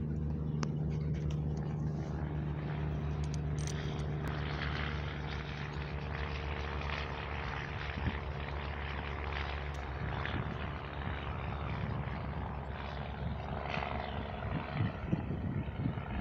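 An engine running steadily: a low, even hum with a rush of noise above it. The hum turns rougher and less even about ten seconds in.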